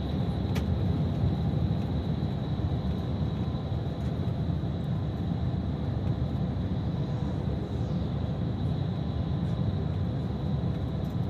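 Bus cabin on the road: a steady low engine and road rumble, with a faint, steady high whine above it.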